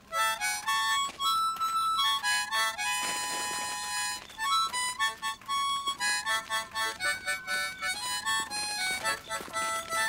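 Harmonica playing a quick tune of short notes and chords.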